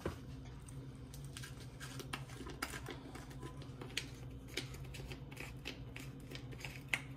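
Scattered light clicks and ticks, a few each second and irregular, over a steady low hum.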